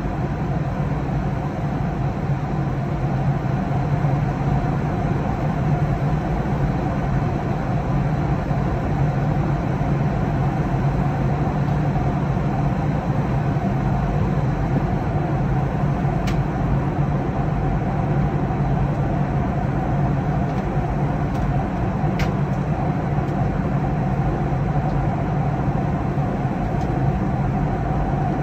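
Steady drone inside an airliner's cabin in cruise flight: engine and airflow noise with a low hum, unchanging throughout.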